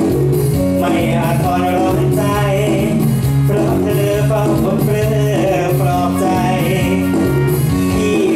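Luk thung song performed live: a male singer over backing music with a steady beat, played loud through a stage PA.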